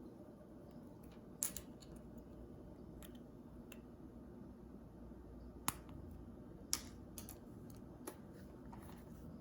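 A handful of short, sharp clicks and taps spread irregularly over a quiet room background, from gel pens being handled on a desk during swatching.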